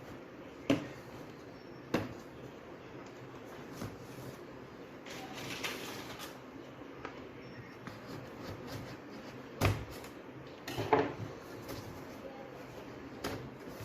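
A trimmer's packaging box being opened and handled: a handful of sharp knocks and taps, with a stretch of rustling in between and a cluster of knocks a couple of seconds before the end.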